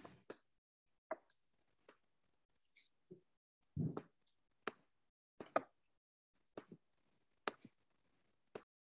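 Faint, scattered handling noise on a clip-on microphone: about a dozen short clicks and soft knocks a second or so apart, with a duller thump about four seconds in and the sharpest click about five and a half seconds in.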